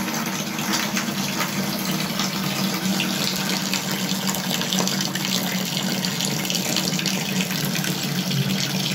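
Water running steadily from the spout of a bathroom wall mixer tap, turned on full.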